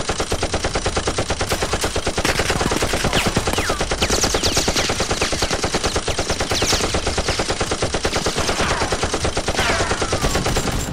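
Machine-gun sound effect: rapid automatic fire at about ten shots a second, with a few high whistles falling in pitch.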